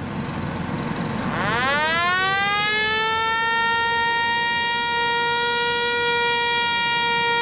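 Centrifugal air blower at the pulsejet engine's intake spinning up to start the engine: a whine that rises in pitch about a second in, then holds at a steady high tone over a low rumble.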